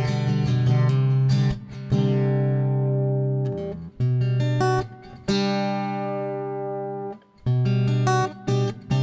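Background music: acoustic guitar, plucked and strummed chords left to ring, with short breaks between phrases.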